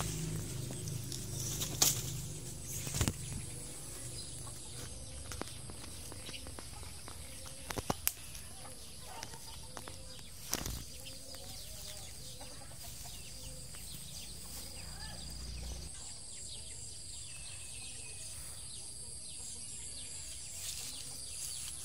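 Garden ambience: a steady high insect drone with faint animal calls, and a few sharp knocks and rustles from leaves and handling against the phone, the loudest about two seconds in.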